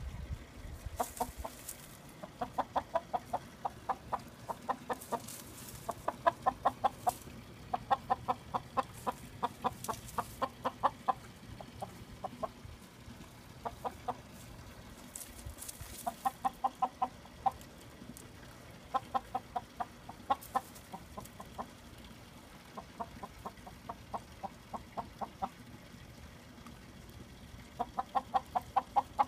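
Chickens clucking in quick runs of short, rapid clucks, each run a second or two long, repeating with pauses throughout.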